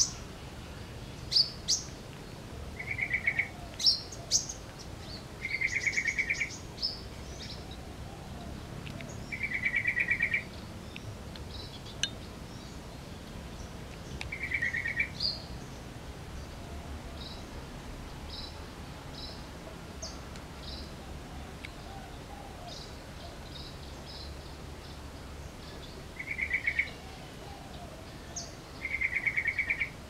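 Yellow-vented bulbul calling in short trilled phrases, six of them a few seconds apart, with scattered short, high chirps in between.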